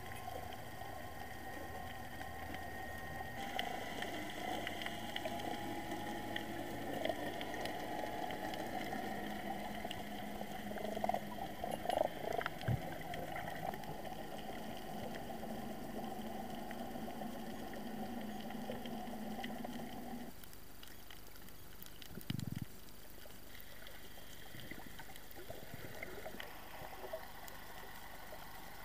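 Underwater ambience heard through a dive camera's housing: a steady muffled hum and hiss with faint steady tones, and a few clicks and gurgles around the middle. The background changes abruptly twice.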